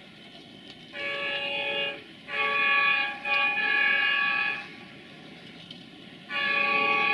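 Air horn of an Electroputere 060-DA (LDE2100) diesel locomotive sounding a multi-note chord: three blasts in the first half, each about a second long, then a long blast starting near the end that carries on.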